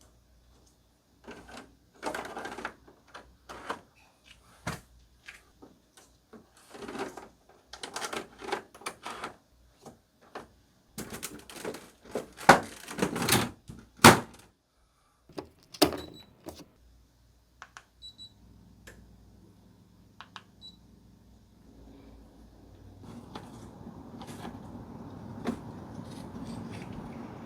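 Sharp plastic clicks and knocks as a wall-mounted air conditioner's parts are handled and snapped into place. Then a few short beeps, and the unit starts up: a low hum, then the fan's airflow swelling into a steady rush near the end.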